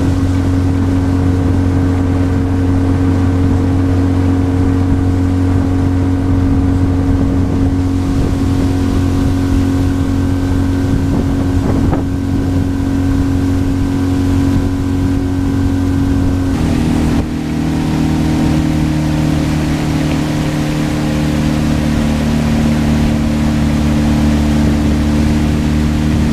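A boat's outboard motor runs steadily while under way. About two-thirds of the way through, its pitch changes abruptly, with a brief dip in level.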